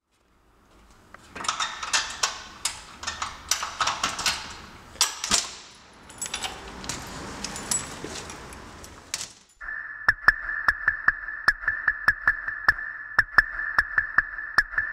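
Jangling, rustling and clicking handling sounds for about eight seconds, like keys and a bag being carried through a door. About ten seconds in, a steady high tone starts, with sharp ticks a few times a second.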